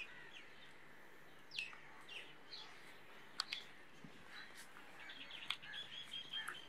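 Faint bird chirps: scattered short high calls, a few sliding down in pitch, then a quick run of repeated notes near the end.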